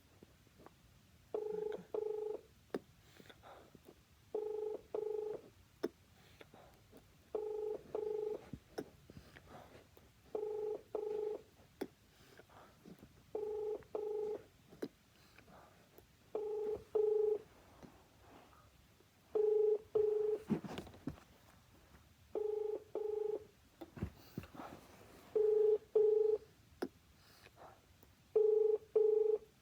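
Telephone ringback tone heard through a Uniden cordless phone handset: a double ring repeating about every three seconds, ten times. The called line is ringing and has not yet been answered.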